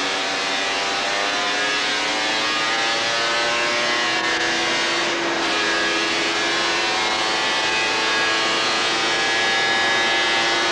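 Kawasaki two-stroke triple motorcycle engine pulling in gear on a rolling-road dynamometer, its pitch climbing slowly and steadily as it gathers speed under load.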